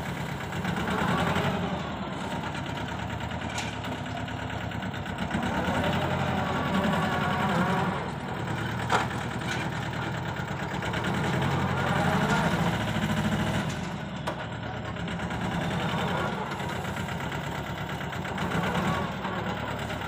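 Mini tractor's diesel engine running and working under load as its front loader digs and lifts dirt, the engine note swelling and easing several times. One sharp clank about nine seconds in.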